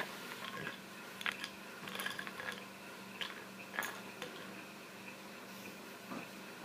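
Faint, scattered light clicks and taps of small hard objects being handled and set down, over a steady low hum.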